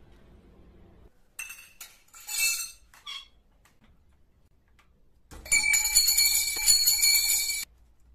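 Thin metal poles and plastic fittings of a flat-pack shelving rack clattering during assembly: a few clinks and knocks, then about two seconds of dense metallic rattling and ringing that stops abruptly.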